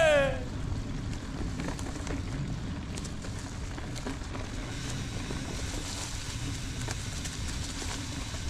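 Mountain bike being ridden on a trail: a steady rumble of tyres and wind on the camera's microphone, with a few faint light rattles.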